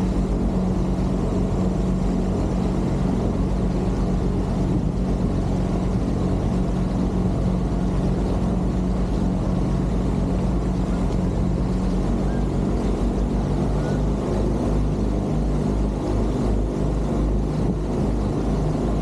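Sailboat's auxiliary engine running at a steady speed as the boat motors along, a constant low drone, with water washing along the hull.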